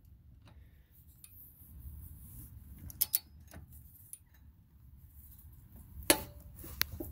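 Click-type torque wrench on a car's lug nut, giving a few sharp metallic clicks: a close pair about three seconds in and two more near the end.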